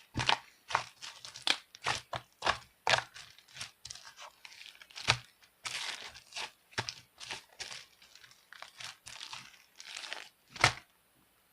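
Irregular handling noises: many short sharp clicks and taps with crinkling rustles between them.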